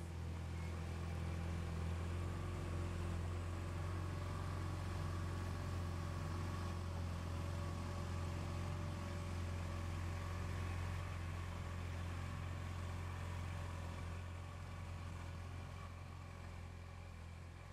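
Outboard motor of a small river boat running steadily: a constant low engine drone with a hum that eases off a little near the end.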